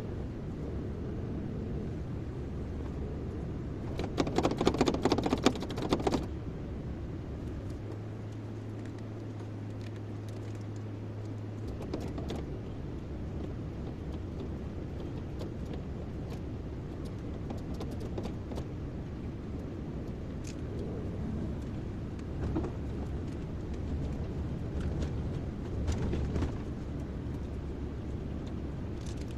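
Kobelco excavator's diesel engine running steadily, with a loud rattling clatter lasting about two seconds starting about four seconds in and scattered clicks and knocks.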